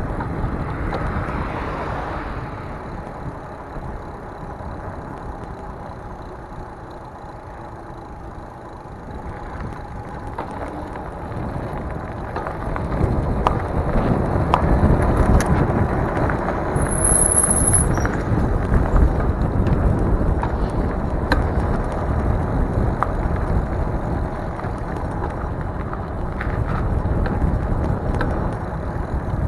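Rolling noise and wind rush from a Mongoose Dolomite fat-tyre e-bike being ridden, quieter for a few seconds and then louder from about halfway through as it rolls onto a rougher alley surface. A brief high-pitched tone sounds once near the middle.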